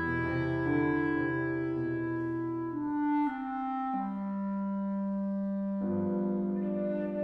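Clarinet playing long held notes over piano chords in a classical chamber piece; the harmony changes about 4 s in and again near 6 s.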